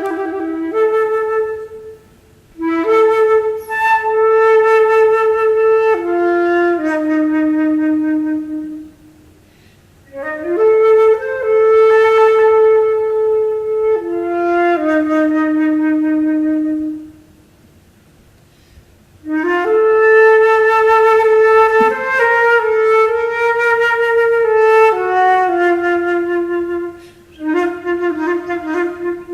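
Unaccompanied solo flute playing slow phrases of long held low notes, each phrase stepping downward, with short pauses between phrases.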